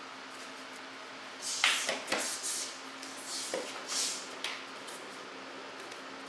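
A quick cluster of swishes and slaps from karate technique, with the uniform snapping, strikes and footwork on the floor. The sharpest comes about a second and a half in, and the burst ends before five seconds, over a steady low hum in the room.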